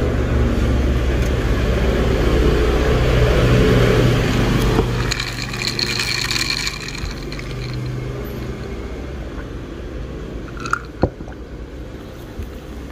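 Milk being poured from a glass into a bottle holding espresso and ice cubes, a liquid rush over a steady low rumble, thinning out after about five seconds; a single sharp knock near the end.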